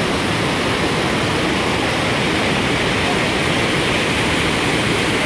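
Steady rush of river water pouring over rock ledges and small cascades.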